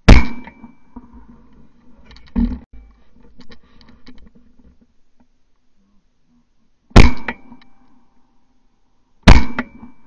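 Three close shotgun shots, each a sharp report with a brief ring after it: one at the start, then a pair about two seconds apart near the end. A softer knock comes about two seconds after the first shot.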